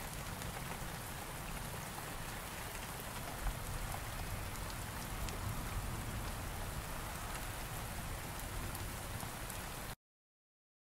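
Heavy rain falling steadily, with one light knock about three and a half seconds in; the sound cuts off suddenly near the end.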